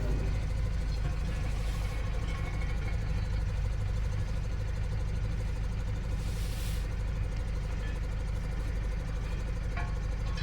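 Engine of heavy construction machinery running steadily with a low, even hum. A short hiss comes about six and a half seconds in.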